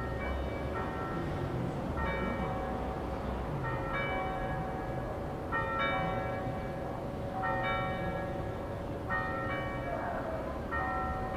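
Church bells ringing together in a festive full peal. Bells of several pitches strike about once a second, and each rings on over the next.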